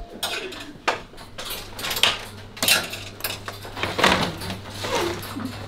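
Irregular knocks and clatter of crates and goods being handled while a delivery is unpacked and stocked, over a steady low hum.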